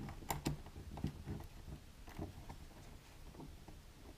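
Faint handling noise: scattered light clicks and taps as the ground wire is bent and hooked around the ground screw of a thermostat.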